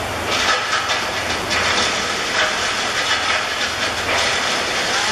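Steam locomotive working hard as the train approaches, giving loud irregular exhaust chuffs and hissing steam.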